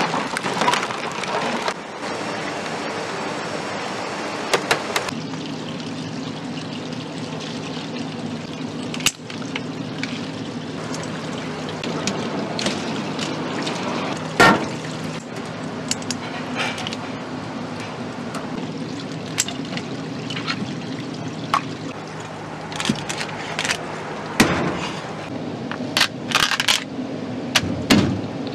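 Crab shells and metal utensils clicking and clattering as crabs are cut up, over a steady low hum. Near the end come a run of cleaver strokes on a wooden chopping block.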